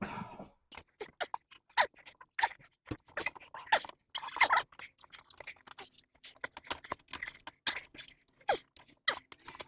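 Golf cart tire being forced onto its rim on a manual tire changer: a quick, irregular string of knocks, scrapes and short rubbery squeaks as the bead is worked over the rim edge.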